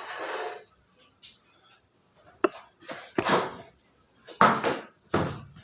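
Metal light stand being handled: a series of separate knocks and clacks of its tubes and fittings, with one sharp click about halfway through and the loudest knocks near the end.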